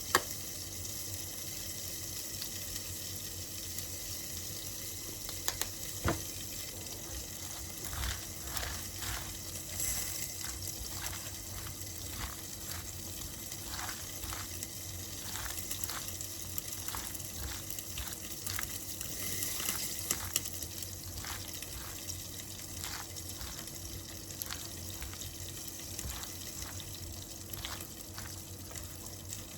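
Kitchen work: a steady hiss of running water, with irregular light clicks and knocks of utensils and dishes throughout.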